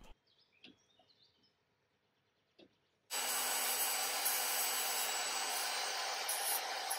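Near silence with a few faint light ticks. About three seconds in, a steady rushing machine noise with a low hum cuts in suddenly and keeps going.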